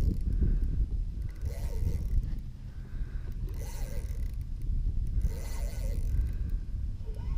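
Three short bursts of fishing-reel mechanism noise, about two seconds apart, as a hooked redfish is fought on a hard-bent rod, over a steady low wind rumble on the microphone.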